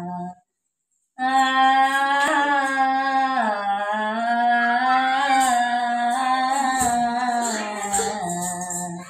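An elderly woman singing long, wordless held notes, her pitch bending slightly. The singing breaks off briefly near the start and resumes about a second in.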